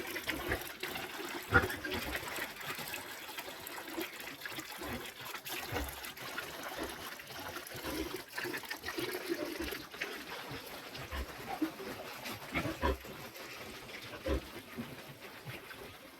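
Water splashing and trickling on a pig pen floor as the pen is washed down, with pigs grunting and scattered knocks throughout.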